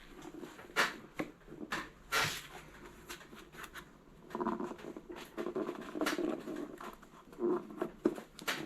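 Snowblower tire bead being levered over the rim on a manual mini tire changer: scattered sharp clicks and knocks with rubbing, scraping noise between them.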